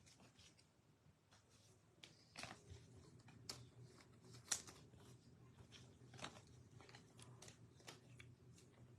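Near silence with faint, scattered clicks and light rustles of trading cards being handled and slid from a pack.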